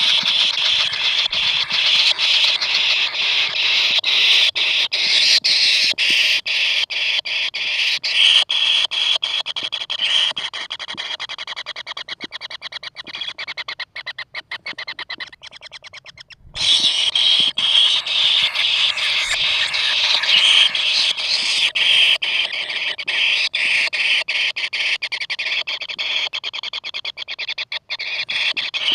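Kingfisher nestlings giving continuous harsh, rapidly pulsing begging calls. The calls drop away for about a second just past halfway, then resume.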